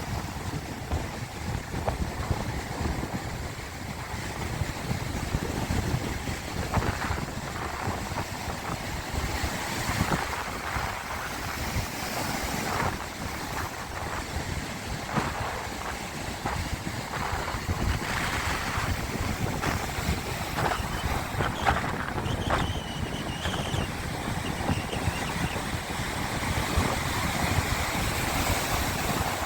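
Sea waves washing and surging continuously, with wind buffeting the microphone.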